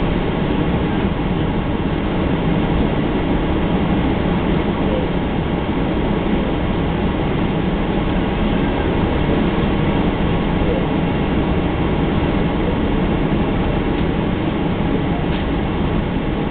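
Steady cabin noise of a Boeing 737-900ER taxiing, mostly the even rumble and hum of its CFM56-7B engines at low thrust.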